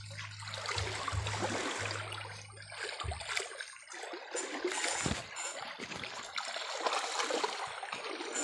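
Water splashing and sloshing as people wade through a shallow creek. A low hum runs for about the first three seconds, then stops.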